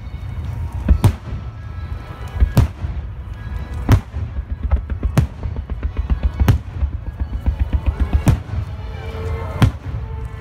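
Fireworks display: aerial shells going off in about seven sharp booms spaced a second or so apart, with a patch of many small crackling pops about two-thirds of the way through, over a steady low rumble.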